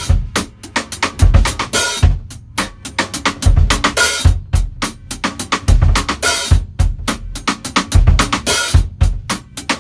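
Gretsch Catalina Club drum kit played in a busy beat: bass drum, snare and cymbals struck in quick succession, starting right at the beginning.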